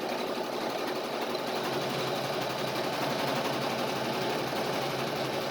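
A steady mechanical whirr that runs on evenly without a break.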